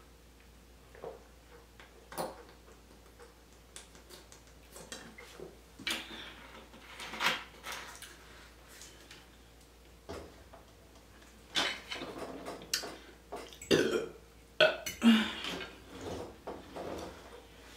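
Close-up eating sounds: scattered short clicks and wet smacks of chewing and utensils on a plate, coming more often in the second half, with a burp about 15 seconds in.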